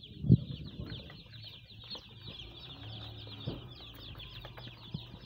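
Many day-old chicks peeping at once in their cardboard delivery box: a continuous chorus of shrill, overlapping, downward-slurred peeps. A loud thump comes about a third of a second in, and there are a few lighter knocks later, as the box is handled.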